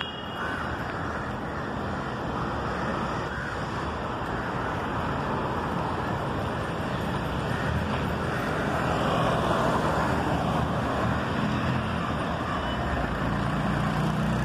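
Steady road and vehicle noise of riding along a city street: a running engine and rushing air, with an engine hum getting louder toward the end.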